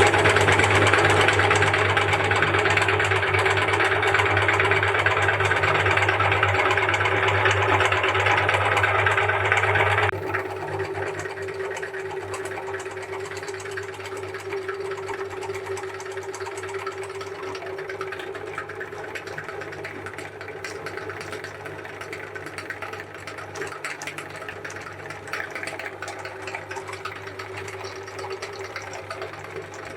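Electric meat grinder running with a steady motor hum. It switches on suddenly, then becomes quieter about ten seconds in and keeps running.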